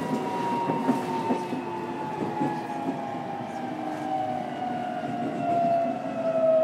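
JR Kyushu 303 series EMU's traction motors whining as the train brakes for a station stop, heard from inside the motor car: several tones fall steadily in pitch as it slows, over wheel and rail rumble. A few clicks from wheels crossing rail joints come about a second in.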